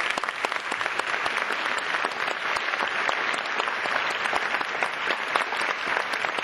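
Audience applauding steadily: a dense spatter of handclaps.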